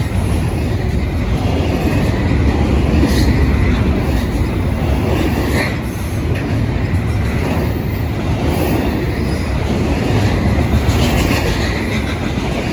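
Freight train cars rolling past with a steady, loud rumble of steel wheels on rail, with a faint high wheel squeal at times.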